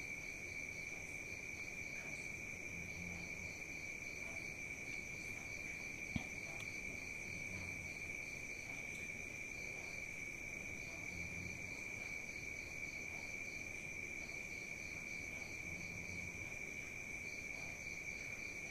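Crickets trilling and chirping steadily in the background. There is a single sharp click about six seconds in.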